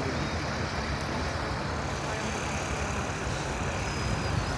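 Steady low rumble of a running motor vehicle, with no distinct events.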